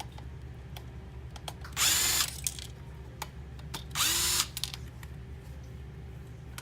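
Small electric screwdriver running in two short bursts, about two seconds and four seconds in, each spinning up quickly as it backs out the screws holding the display to the navigation unit housing. Light ticks of handling come in between.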